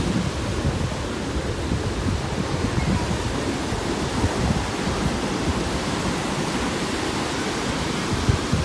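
Ocean surf breaking and washing onto the beach in a steady rush of noise, with wind buffeting the microphone.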